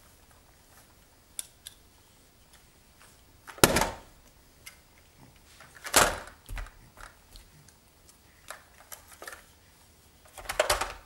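A plastic baby toy banged and knocked against the floor: a sharp knock about three and a half seconds in, another about six seconds in, and a quick run of knocks and rattles near the end, with light clicks between.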